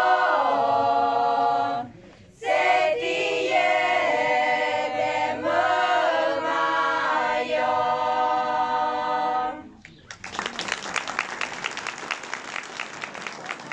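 Group of young women singing a traditional Arbëreshë song a cappella in several voices, with a short breath break about two seconds in. The song ends about ten seconds in and the audience breaks into applause.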